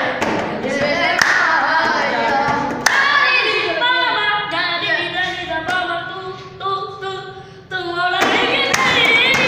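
A group of boys singing unaccompanied, kept in time by hand beats on a wooden desk top and some clapping. The singing fades about halfway through and swells back loudly near the end.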